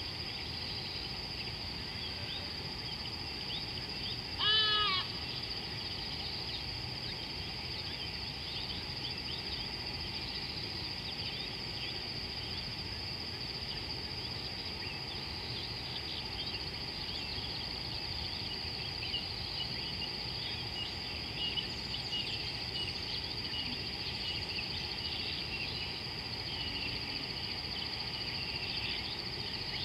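Savanna ambience: a steady high insect drone with scattered small bird chirps throughout, and one short, loud animal call with an arching pitch about four and a half seconds in.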